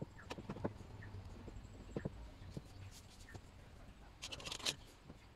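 Hands handling a small wooden clock frame and board, giving a few light knocks and taps, with a short scraping rustle about four seconds in.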